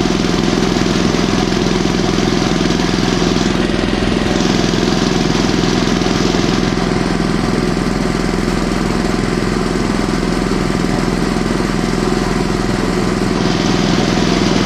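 Articulated mini tractor's engine running steadily at a constant low road speed, heard close up from the driver's seat.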